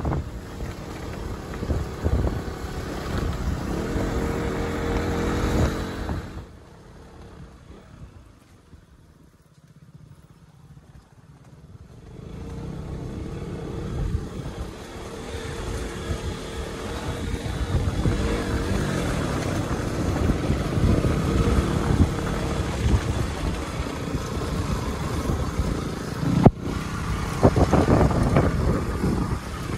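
Motorcycle engine running on the move, with wind buffeting the microphone. It drops much quieter for several seconds about six seconds in, then comes back up.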